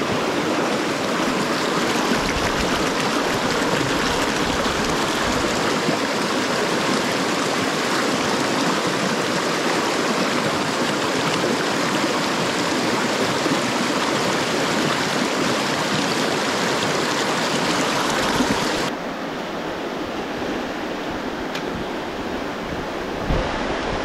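Fast river water rushing over rocks in turbulent whitewater, a steady rush close to the microphone. About 19 seconds in it drops suddenly to a softer, quieter flow.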